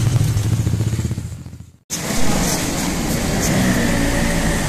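Engine of a 125cc four-stroke pit bike running with a steady low hum that fades away and cuts to silence about a second and a half in, followed by quieter steady background noise.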